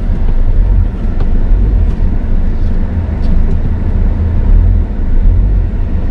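Cabin sound of a Jeep Compass Trailhawk's 2-litre diesel moving slowly: a deep, steady rumble from the engine and drivetrain that swells and eases, with a few faint ticks.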